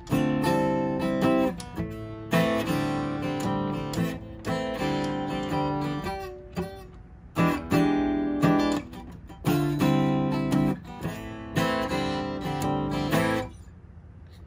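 Taylor 110GB steel-string acoustic guitar strummed in chords that ring out and fade, in phrases with short gaps between them, stopping near the end. It is freshly restrung and set up with its action lowered.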